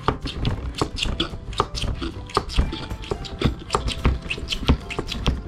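STARESSO SP-200 hand-pump espresso maker being pumped over and over, giving a run of irregular clicks and knocks several times a second as pressure builds to push espresso through. Faint background music with held tones runs underneath.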